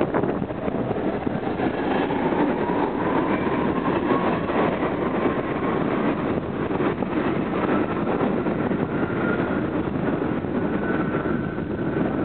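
An R46 subway train pulls out of the station, its wheels rumbling on the rails. A faint whine rises in pitch over the first several seconds as it gains speed.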